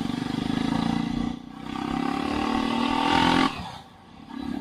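Jawa 42's single-cylinder engine and exhaust accelerating: the revs climb, dip briefly about a second and a half in, climb again, then drop sharply as the throttle is closed about three and a half seconds in, with a short blip near the end. The exhaust note is strong and deep.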